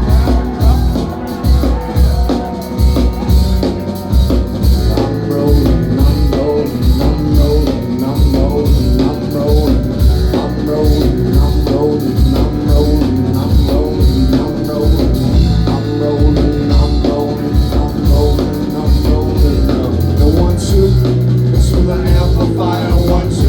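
Live rock band playing an instrumental stretch of a song, with no singing: drums and bass hold a steady beat under a melodic line.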